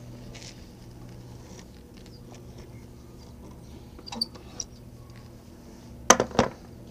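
Clamps being released and taken off a wooden board on a workbench: a few light clicks about four seconds in, then a quick run of sharp, loud metal-and-wood knocks near the end as the clamp comes away.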